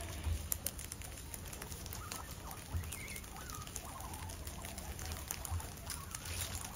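Guinea pigs munching oak leaves: a steady patter of small crunches, clicks and leaf rustles as they bite and tear the leaves, with a few short high chirps a couple of seconds in.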